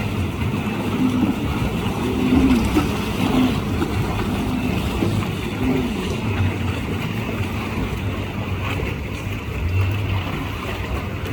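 Sea waves and wind buffeting the microphone over a steady low rumble.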